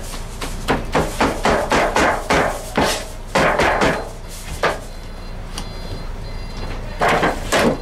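Cleaver chopping cooked barbecue meat in quick repeated strokes, about four a second. The chopping stops about halfway through, with one more stroke after a short burst, and starts again briefly near the end.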